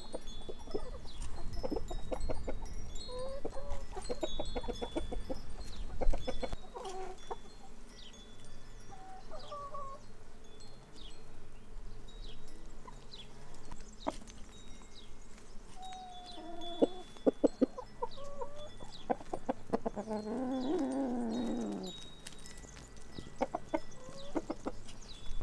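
Free-range chickens clucking in short runs, with one longer drawn-out call about twenty seconds in. Small birds chirp faintly, and there is a single sharp knock about six seconds in.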